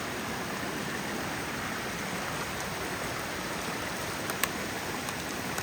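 Steady, even rush of a storm-swollen spring and stream running high with flood water, with one faint click about four seconds in.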